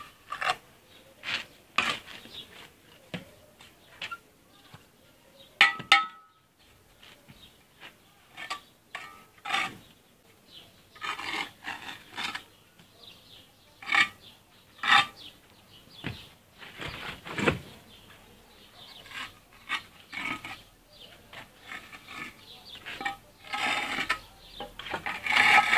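Steel mason's trowel scraping and scooping cement mortar and tapping hollow clay bricks into place: an uneven string of clinks, scrapes and knocks, with a short metallic ring about six seconds in.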